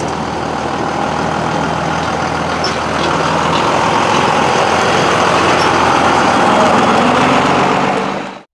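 Diesel engine of a Ford F650 crew-cab truck running at low speed as the truck rolls past, louder from about three seconds in; the sound fades out sharply just before the end.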